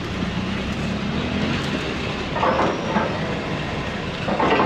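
A vehicle running steadily, a continuous rumble with a low hum, with two short louder sounds about two and a half and four and a half seconds in.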